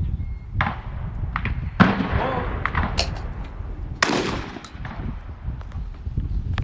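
Several sharp shotgun reports, the loudest about two and four seconds in, over a steady low rumble of wind on the microphone.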